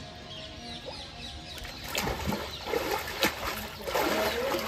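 River water splashing as a man bathes in it, scooping water over his face and dipping his head. The first second and a half is quieter; then come several distinct splashes, louder and fuller near the end.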